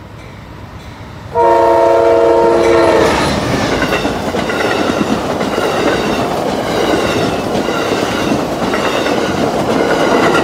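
Amtrak passenger train led by a P42DC diesel locomotive: its horn sounds one loud chord-like blast about a second and a half in, cutting off a couple of seconds later. The train then passes close by: a loud steady rumble of its cars with clickety-clack of wheels over the rail joints.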